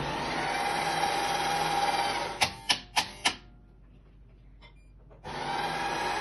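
Unicum Nero coffee machine's burr grinder running a test grind, milling a cleaning agent through its burrs: a steady whir with a hum. It stops a little over two seconds in, a few sharp clicks follow, and it starts again near the end.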